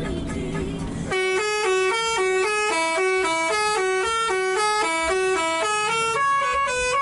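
A bus's Telolet Basuri multi-tone musical horn plays a quick tune of stepped notes, about four a second. It cuts in about a second in, over a low rumble.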